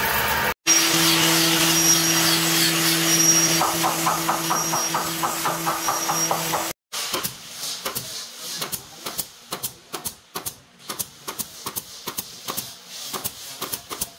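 A band saw briefly, then a steady machine hum with a fast, even ticking for about six seconds. After a sudden break, a nail gun fires a quick run of sharp shots into wood.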